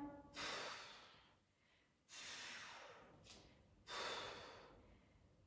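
A woman breathing hard under exertion: three soft breaths, about one every one and a half to two seconds, each fading away.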